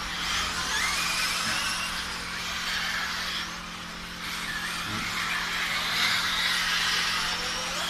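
Radio-controlled model racing cars running on a paved track, their motors whining high and gliding up and down in pitch as they speed up and slow through the corners.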